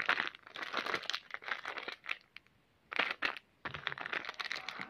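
Clear plastic packaging crinkling as it is handled, in irregular bursts with a short pause about two seconds in.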